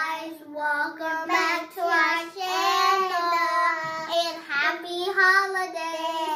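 Young girls singing in high children's voices, holding long notes with short breaks between phrases.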